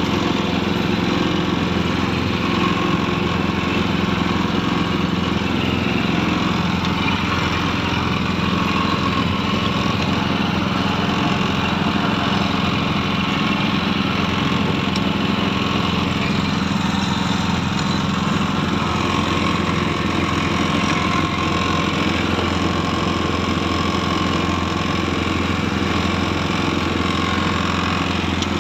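Small engine running steadily at a constant speed, powering a boat's net hauler as it winds a fishing net in from the sea.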